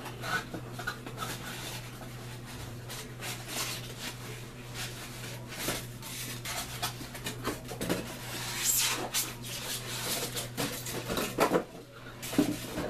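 Cardboard box and plastic wrapping being opened and handled: irregular rustling, crinkling and light knocks, busiest about two-thirds of the way through.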